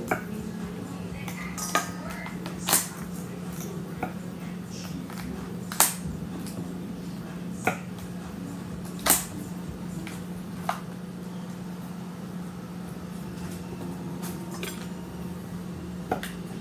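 Kitchen knife knocking on a cutting board while grapes and strawberries are sliced: about eight sharp, scattered knocks, over a steady low hum.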